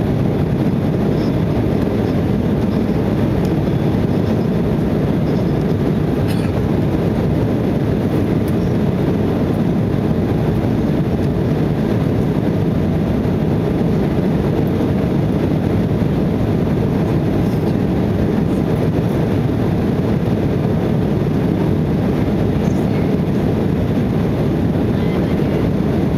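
Steady cabin roar of an Embraer 190 airliner in flight, its turbofan engines and the rushing airflow heard from inside the passenger cabin, low and even throughout.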